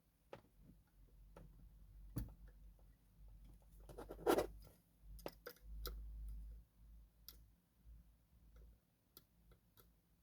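Faint, irregular metallic clicks and scratches of lock picking tools working the pins of a TESA T60 six-pin dimple lock. There is a louder knock about four seconds in, with some low handling noise around it.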